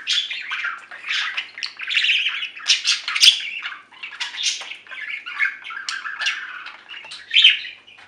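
Pet budgerigars chattering: an unbroken run of quick, varied chirps and calls, with louder calls about three seconds in and again near the end.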